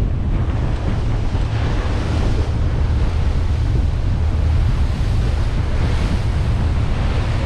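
Wind buffeting the microphone on the open flybridge of a Princess F70 motor yacht running on the plane at about 25 knots, over rushing water from the hull and a steady low rumble.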